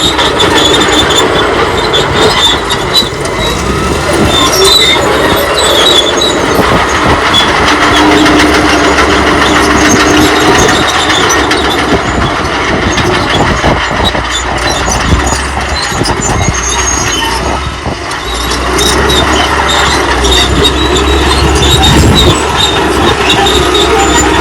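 Old crawler bulldozer working: its engine running under load while the steel tracks squeal and clank.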